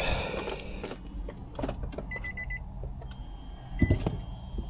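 The 5.6-litre V8 of a 2015 Infiniti QX80 idling on a replacement used ECM, which the owner says doesn't sound too good. A quick string of electronic beeps sounds about two seconds in, and one short beep near the end.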